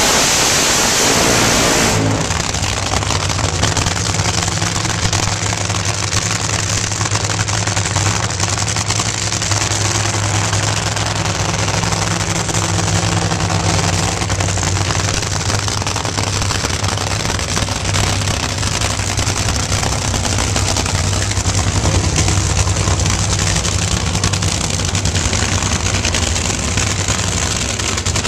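Two nitro Funny Cars' supercharged nitromethane V8s run at full throttle through the end of their burnouts for about the first two seconds. The engines then drop to a steady, low, loping idle as the cars are backed up after the burnout.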